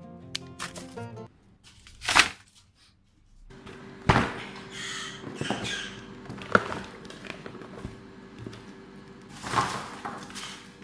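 Music that stops about a second in, followed by four loud knocks or thuds spread over the rest of the time, with rustling and a low steady hum between them.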